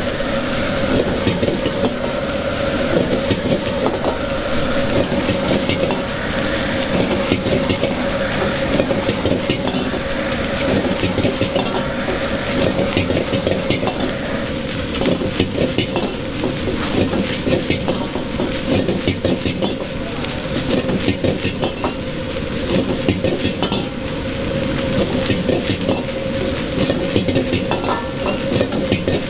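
Egg fried rice sizzling in a wok, stirred with a metal utensil that scrapes and clinks against the pan many times a second, over a steady hum.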